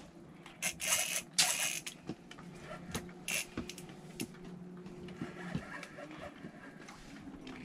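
A fishing reel being cranked to bring in a fish on an ice-fishing rod: a steady mechanical whir for a few seconds midway, among short rustles and scrapes.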